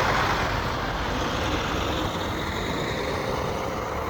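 A large truck going by close on a snow-covered road. Its tyre and engine noise is loudest at the start and slowly fades as it moves away.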